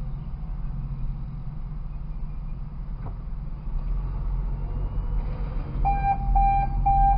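Steady low hum of a stopped car idling, heard from inside the cabin. From about six seconds in comes a run of evenly spaced electronic beeps, about two a second.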